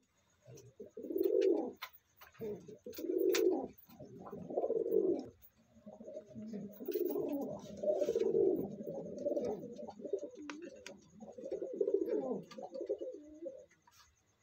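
Domestic pigeons cooing in low, rolling calls: three short coos in the first five seconds, then almost unbroken cooing for about seven seconds.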